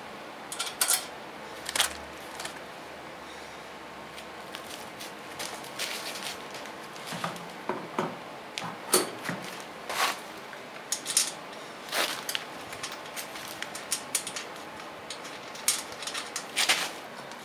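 Scattered metal clinks and light knocks as a wheel, washer and nut are fitted by hand onto a portable generator's wheel axle.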